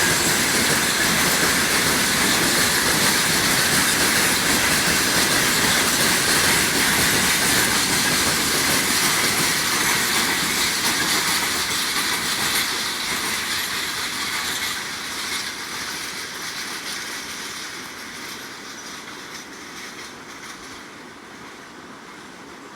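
Freight train wagons rolling past, their steel wheels clattering and screeching on the rails. The noise fades gradually over the second half as the train moves away.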